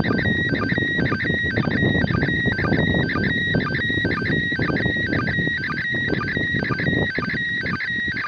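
Satellite telemetry data signal received on a Quansheng handheld radio: a fast, evenly repeating warble of alternating high tones over a bed of radio hiss.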